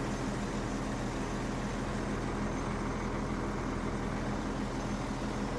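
A vehicle engine running steadily, a low even hum with no change in pace.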